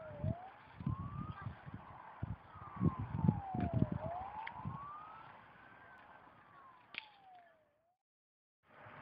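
Fire engine siren wailing, sliding slowly down and up in pitch, with low thumps and rumbles on the microphone. The sound cuts off about a second before the end.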